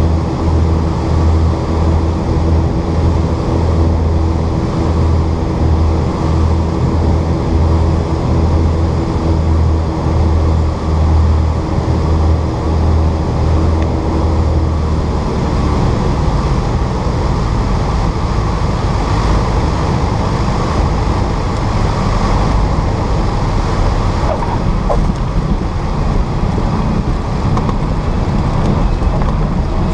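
Piper Aztec's twin piston engines and propellers droning with a slow pulsing beat on final approach. About halfway through, the steady engine drone drops away as power comes off for the landing, leaving a rough rushing noise of airflow and the wheels rolling on the runway.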